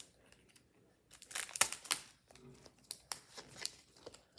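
A foil trading-card booster-pack wrapper crinkling while Pokémon cards are handled, in a few short crackly bursts starting about a second in.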